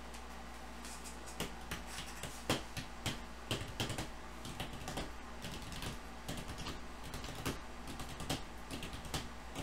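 Typing on a computer keyboard: irregular key clicks, starting about a second in, over a steady low hum.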